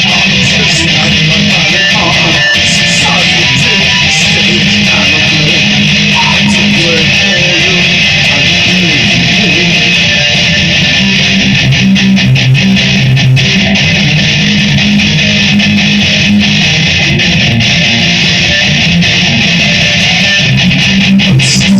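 Guitar strummed through mild distortion, played without singing, loud and even throughout.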